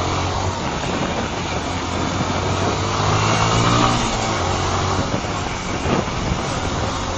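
Honda CBR125's single-cylinder four-stroke engine running as the motorcycle rides along, with wind rush on the microphone. The engine note swells about halfway through, loudest around three to four seconds in.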